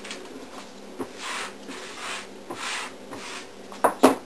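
Parchment paper rustling on a metal baking sheet as pizza dough is pressed and spread out by hand, in several short rustles, with two sharp, louder sounds near the end.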